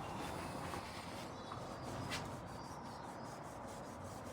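Faint rubbing handling noise with a light click about two seconds in.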